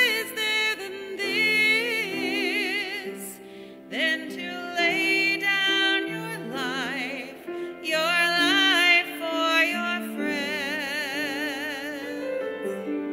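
Hymn sung by a singer with wide vibrato over sustained keyboard chords, as music during communion at Mass.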